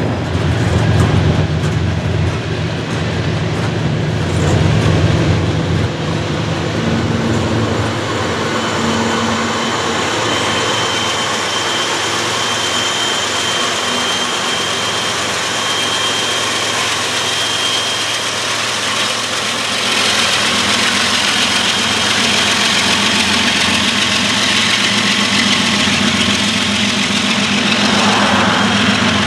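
Loaded coal train of hopper cars rolling past on the rails, with a Norfolk Southern AC44C6M diesel locomotive's engine running as it goes by. A thin, steady high squeal sounds through the middle of the passage.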